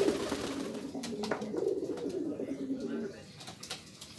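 Domestic pigeon cooing: a low, wavering coo through the first few seconds that fades toward the end.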